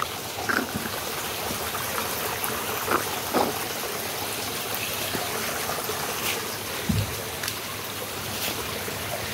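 Steady rushing of a stream running full, with a few brief knocks.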